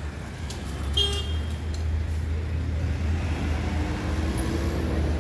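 City street traffic at a busy roundabout: a steady low rumble of passing cars and a truck, with a short high beep about a second in.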